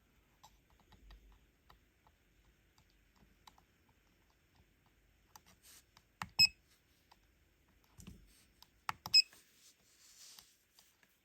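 Two sharp clicks about three seconds apart, each with a very short high beep, with a few softer handling clicks around them and a brief soft hiss near the end; typical of button presses on a T12 soldering station controller with its piezo buzzer.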